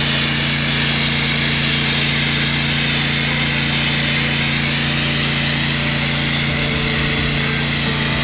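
Pressure washer running steadily: an unchanging engine or pump hum under a strong, even hiss of spraying water.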